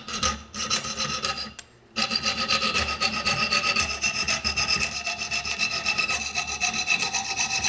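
Magic Saw hand saw's thin rod blade sawing through steel nails in a wooden board: rapid, even back-and-forth rasping strokes with a steady high metallic ring over them. The strokes stop briefly about a second and a half in, then carry on.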